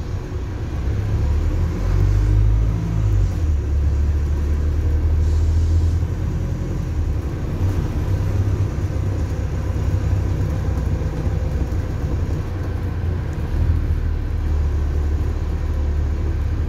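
Wright StreetDeck double-decker bus on the move, heard from inside the saloon: a low engine and road rumble that swells and eases several times.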